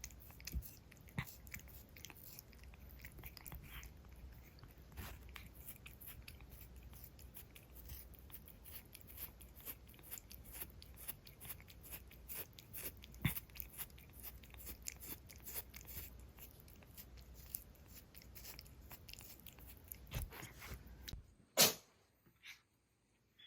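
A pet licking and nibbling at itself close to the microphone, a dense run of small wet clicks and crunches. One louder click comes near the end, and then the sound stops.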